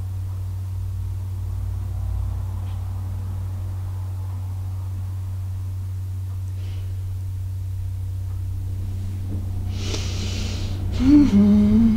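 Steady low hum throughout. About ten seconds in, a person draws a breath for about a second, then makes a short hummed voice sound, the loudest moment.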